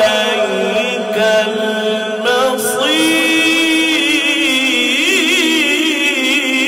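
A male qari reciting the Quran in long, melodic held notes with wavering, ornamented pitch, a new drawn-out note starting about three seconds in.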